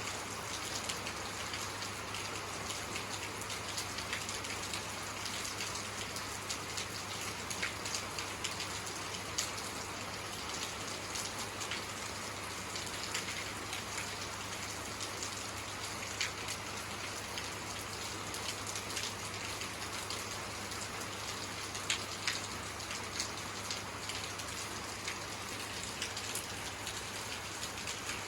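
Steady rainfall, a continuous hiss with many individual drops pattering on a surface.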